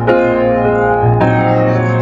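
Background music on a piano-like keyboard, a new chord struck about every second and a quarter over a held low note.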